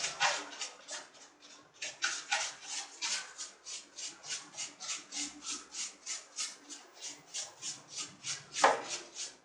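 A brush scrubbing the blower fan inside a split air conditioner's indoor unit, wet with detergent water, in quick even strokes about four a second, with one harder stroke near the end.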